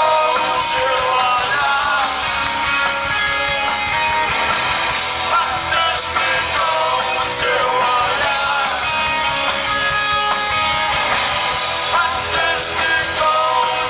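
Live rock band playing at full volume: electric guitars, bass and drums, heard from the audience.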